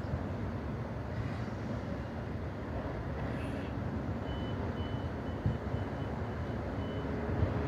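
Steady low rumble of a freight train crossing a steel truss bridge. Over the second half comes a run of short, high beeps, about two a second.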